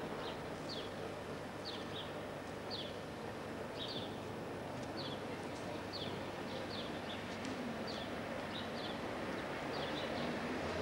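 Small birds chirping repeatedly, short high downward notes about once or twice a second, over a steady background noise.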